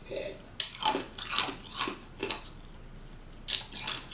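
Ice cubes being crunched between the teeth: a run of sharp, irregular crunches and cracks.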